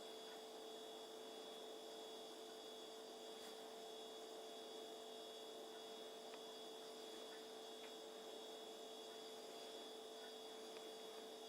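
Near silence: a faint, steady electrical hum with a thin high whine above it.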